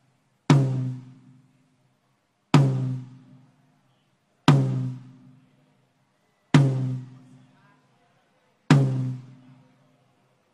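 Drum-kit soundcheck: one drum struck singly and evenly, five hits about two seconds apart. Each hit rings out and dies away within about a second and a half. The drum is played through the PA while its EQ and gate are set on the mixing console.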